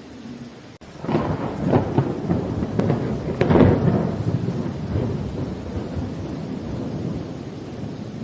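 A thunderclap over steady rain. It breaks about a second in with several sharp cracks, is loudest around three and a half seconds, then rolls on as a low rumble that slowly fades.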